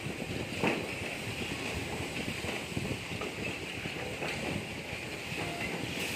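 Steady background noise with scattered light rustles and taps as hands handle and rub faux-leather eyewear cases on a table.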